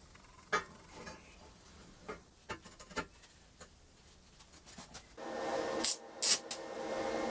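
A few light clicks and knocks of parts being handled. About five seconds in, an angle grinder's electric motor starts and runs with a steady hum, with two short sharp hissing bursts just after.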